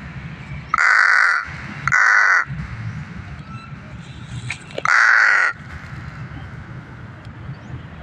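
Pet crow giving three harsh caws, each about half a second long: one just under a second in, one about two seconds in and one about five seconds in.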